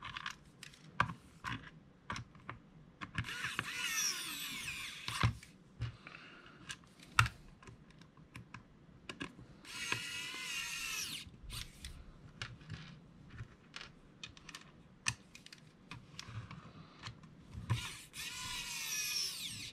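Pen-style electric precision screwdriver whirring in three short runs, driving the screws that close a hot glue gun's plastic housing, its motor pitch sliding as each screw turns. Small clicks and knocks from handling the tool and the glue gun between the runs.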